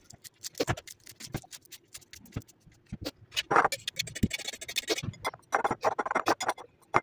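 Kitchen utensil working a parsley-and-cheese filling: quick, irregular clicks and taps, with a few short scraping passes near the middle and later on.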